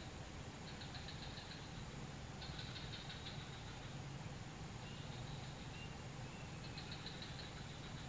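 Faint, steady low hum like a distant idling engine, with three short, high, rapidly pulsed trills over it.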